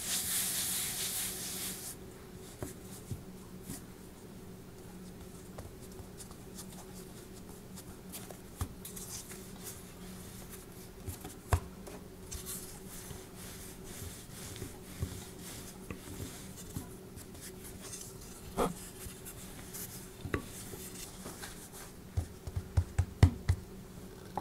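Hands sweeping flour across a countertop, a soft hiss for the first couple of seconds. Then a wooden rolling pin rolls out a ball of bread dough, with quiet rubbing and occasional light clicks. A quick series of sharp knocks comes near the end.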